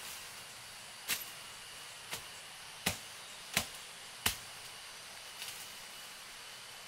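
Five sharp chops of a blade striking bamboo or wood, starting about a second in and coming roughly two-thirds of a second apart, the last ones loudest, with fainter ticks after. A steady high hiss runs underneath.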